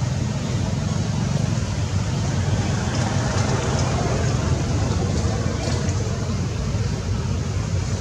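A steady low rumble of outdoor background noise, with no distinct events.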